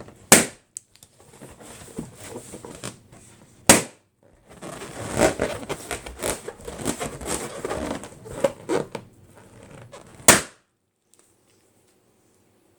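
Three loud balloon pops: one just after the start, one a few seconds later, and one near the end. Between the second and third pop there are several seconds of rubbing, squeaking and crinkling as the balloons are squeezed and handled.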